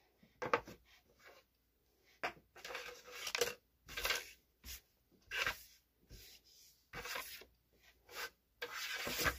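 Small doll toys and doll furniture being handled and moved about: a string of short, irregular rustles, scrapes and light clicks, with a longer rustle near the end.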